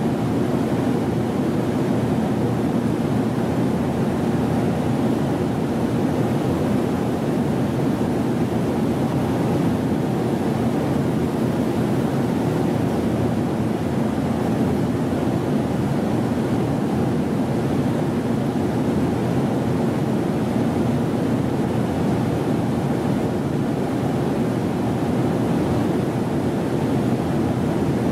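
Steady, unchanging rushing hum of a JR Kyushu 787 series electric train standing at the platform, its onboard equipment running.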